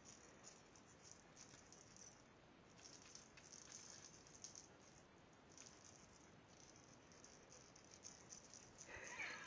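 Small bell on a cat toy jingling faintly, in short on-and-off spells as the toy is shaken.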